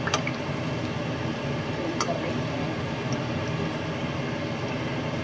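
Martabak parcels wrapped in spring-roll pastry shallow-frying in oil in a nonstick pan, a steady sizzle over a low hum. A metal spatula clicks against the pan twice, near the start and about two seconds in.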